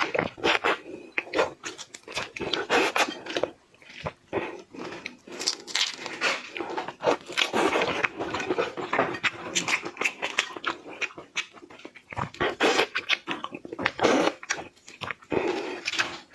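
Close-miked mouth sounds of someone eating seafood: wet smacking, sucking and chewing in quick, irregular bursts, with some crunches.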